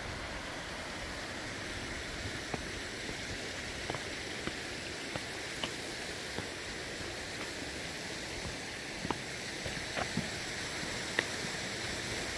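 Steady rushing of a mountain stream, with a scatter of faint ticks from footsteps on the stony path.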